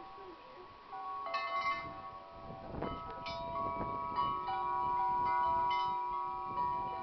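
Wind chimes ringing in gusty wind: clear tones struck at irregular moments, one after another, each ringing on over the others, with wind buffeting the microphone.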